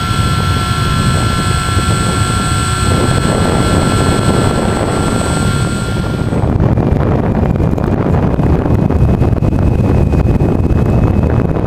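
Brushless electric motor of a foam RC FunJet whining at a steady pitch over heavy wind rush on the plane's on-board camera microphone. About six seconds in the strong whine stops, leaving the wind rush with a fainter whine.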